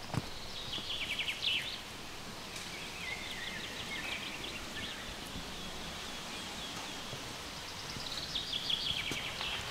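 Small songbirds singing rapid trilled phrases, three stretches of song, over a steady woodland background hiss.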